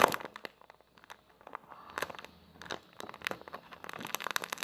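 Plastic bag crinkling as it is handled, in short irregular spells, beginning with a sharp click.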